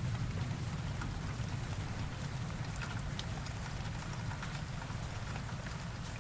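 Rain sound effect: steady rainfall with scattered individual drop ticks over a low rumble.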